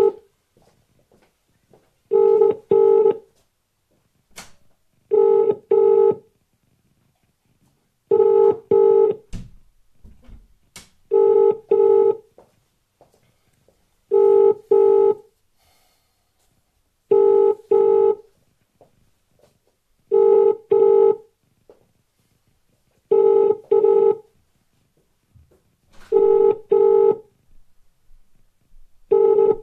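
British telephone ringback tone: a double ring repeating about every three seconds, ten times over, as an outgoing call rings without being answered.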